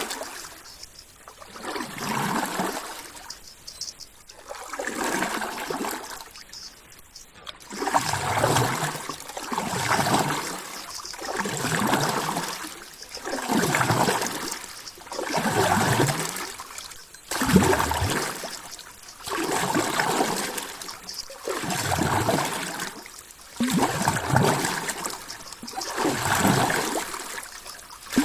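Water sloshing and gurgling in regular surges, each swelling and fading, about one every two seconds.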